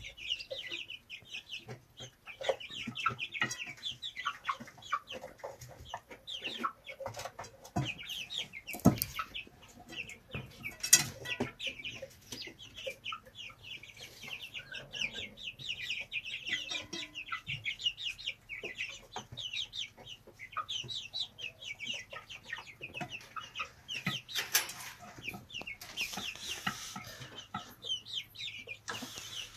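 Young chickens peeping constantly in quick, high, falling notes, with hens clucking among them. Two sharp knocks stand out, about nine and eleven seconds in.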